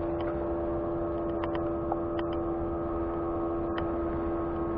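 A motorboat engine running steadily at one pitch, heard as a constant hum, with a few faint clicks now and then.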